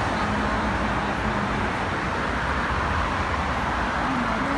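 Steady street traffic noise: a continuous mix of car and van engines and tyres on the road.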